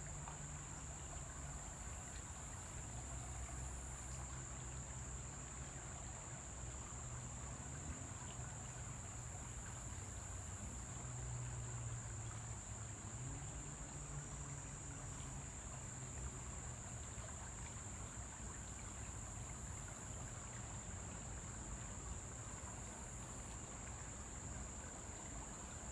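Insects droning steadily in one high note, with faint rapid ticking above it, over a low rumble.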